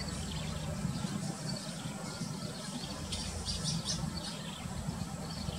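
Diesel engine of an 18-wheel dump truck and trailer running at low revs as the rig reverses, with brief high squeaks a little past the middle.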